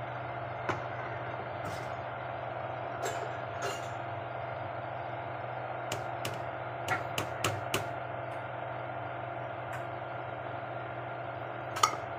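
A steel ladle clinking and scraping against an aluminium pot while stirring thick vermicelli kheer: scattered sharp clinks, a quick run of about five in the middle and the loudest one near the end, over a steady hum.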